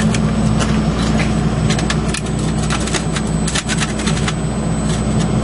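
Steady low machine drone, like an engine or power unit running, under frequent short sharp clicks and scrapes of a small steel hand tool working inside a machined steel bore.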